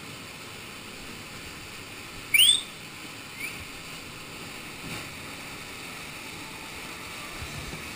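Steady rush of a waterfall pouring into a rock pool in a canyon. About two and a half seconds in, a short, loud rising whistle cuts through, with a fainter rising whistle a second later.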